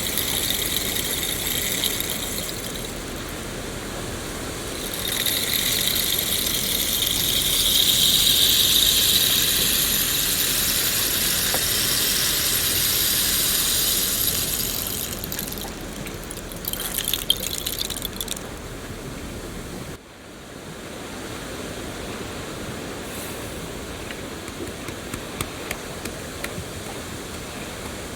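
Rain falling, a steady hiss that swells louder for several seconds, then changes abruptly about two-thirds of the way in to a softer patter with a few sharp drips.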